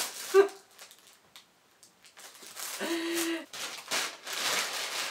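Plastic packaging crinkling and rustling as a plastic mailer bag is handled and pulled open, starting about three and a half seconds in, after a short hummed vocal note.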